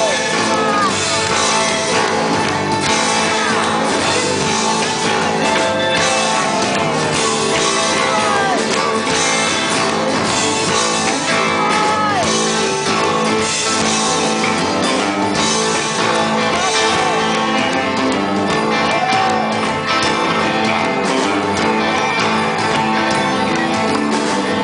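Live rock band playing: acoustic and electric guitars, bass guitar and drums, with a male voice singing, at an even, loud level.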